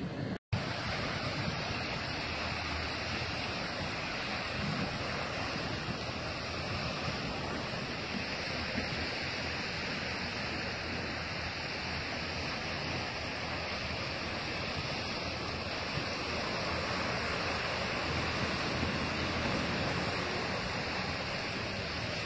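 Steady rush of fast-flowing floodwater pouring over flooded ground, broken by a split-second dropout about half a second in.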